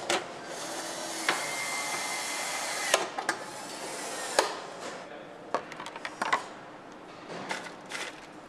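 Motorcycle assembly-line work noise: a steady hiss lasts about four seconds, broken by a few sharp clicks. After that come scattered clicks and knocks of tools and parts.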